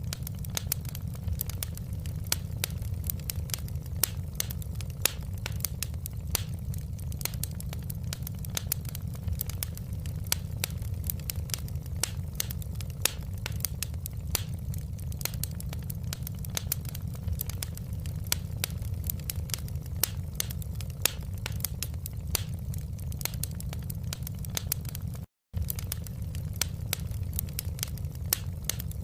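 Wood fire crackling in a fireplace: a steady low rumble of the flames with frequent sharp pops and snaps. The sound cuts out completely for a fraction of a second near the end.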